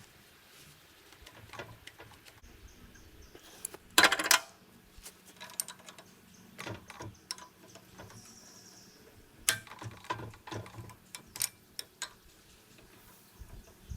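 Scattered clicks and light knocks of hand tools on metal, with a louder clatter about four seconds in.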